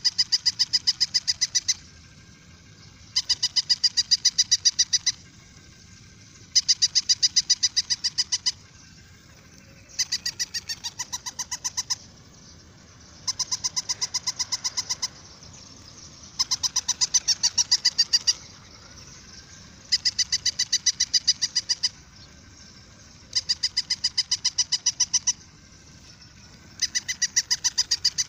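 Battery-operated toy dog's electronic bark sound: bursts of about two seconds of rapid, high-pitched, identical yaps, repeating about every three and a half seconds.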